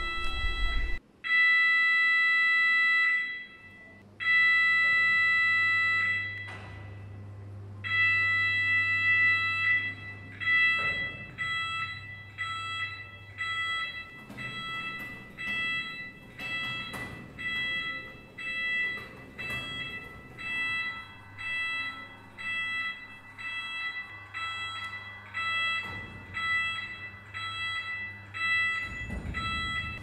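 Electronic warning beeper of motorized moving exhibition wall panels: three long beeps, then steady short beeps about once a second, signalling that the panels are moving. A low hum runs under the beeps for long stretches.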